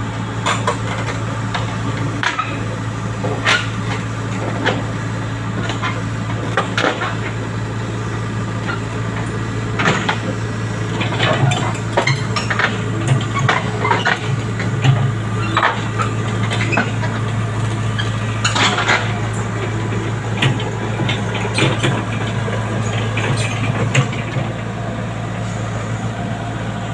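Tata Hitachi crawler excavator's diesel engine running steadily as the machine crawls down off a trailer onto the road, its steel tracks clanking and clinking irregularly, the clanks coming thickest through the middle and later part.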